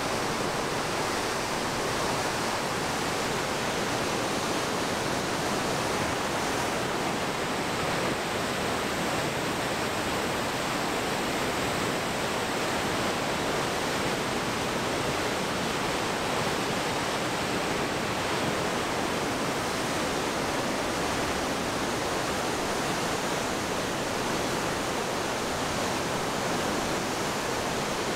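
River water pouring over a weir, a steady loud rush of churning white water with no let-up.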